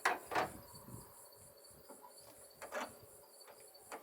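A few sharp knocks, two close together at the start and one about three seconds in, from a tool striking the hood latch mechanism, over steady chirping of insects.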